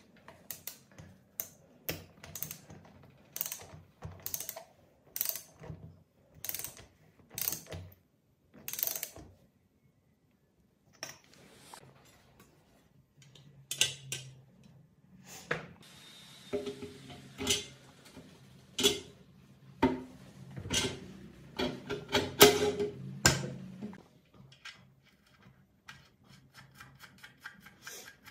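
Ratchet wrench clicking as it is worked in short strokes, about one a second, on the cylinder head of a small four-stroke generator engine. After a pause it gives way to irregular metal clicks and knocks as a pressed-steel shroud is handled and fitted over the head, loudest near the end.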